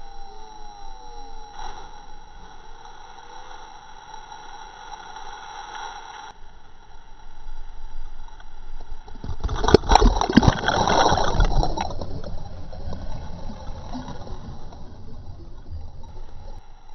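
A diver plunges into a river rock pool about ten seconds in: a loud splash with sharp slaps, then a couple of seconds of rushing, churning water. Otherwise there is only a steady low background hiss.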